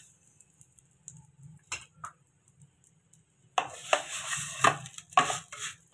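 A spatula stirring sugar into dry fried vermicelli in a metal pot, scraping and clattering against the pot in repeated strokes. The stirring starts about three and a half seconds in, after a near-quiet stretch with a few faint ticks.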